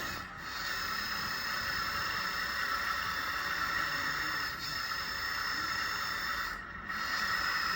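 Electric hydraulic pump of a 1/14 scale RC backhoe loader running with a steady hiss and high whine. It dips briefly three times.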